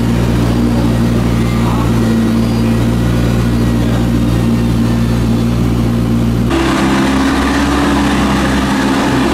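Car engine idling steadily. About six and a half seconds in, it cuts abruptly to a different steady engine note.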